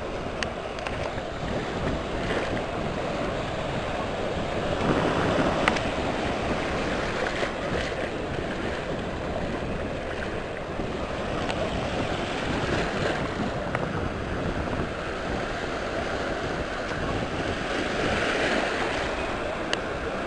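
Small sea waves breaking and washing through the shallows, swelling louder about five seconds in and again near the end, with wind buffeting the microphone.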